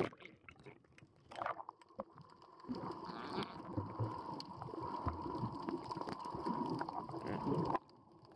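Muffled underwater sound of swimmers and bubbles: bubbling and gurgling with scattered clicks, denser from about three seconds in as a jumper's bubble trail rises, over a steady faint tone. The sound drops away suddenly near the end.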